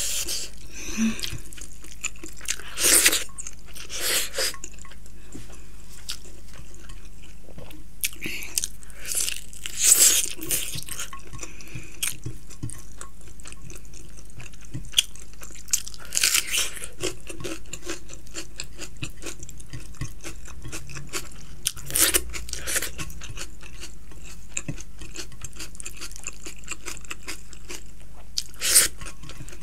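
Close-miked chewing of a person eating by hand, with steady wet mouth noises and, every few seconds, a short louder smack or slurp.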